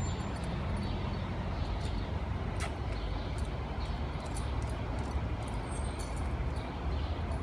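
Steady low rumble of outdoor background noise, with scattered faint clicks and taps.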